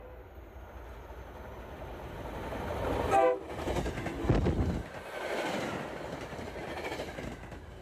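MBTA commuter rail train approaching and rolling past at close range: the rumble of wheels on rail grows, with clickety-clack from the bilevel coaches. A brief horn blast sounds about three seconds in, and the rumble peaks a second later as the coaches pass.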